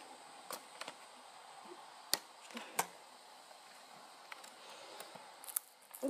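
A handful of sharp, irregular clicks and taps from fingers picking at a sticky pull tab on a small cardboard box, over faint hiss.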